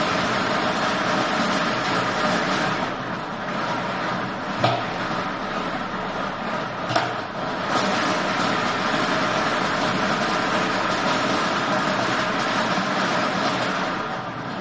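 Motorized lottery ball machine: plastic balls clattering steadily as the rotating paddle stirs them inside the clear drum, with a few louder single clacks.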